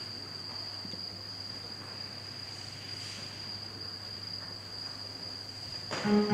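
A steady, unbroken high-pitched trill, like crickets calling, over a faint low hum. Music comes in just before the end.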